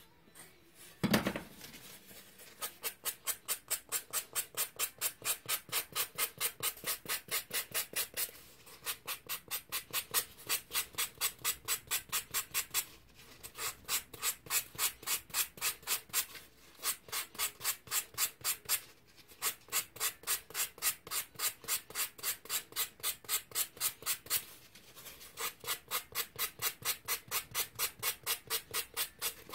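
Sandpaper rubbed back and forth by hand over a pink ball-jointed doll leg core: rhythmic rubbing strokes, about three a second, with a few short pauses. A single thump about a second in comes before the sanding starts.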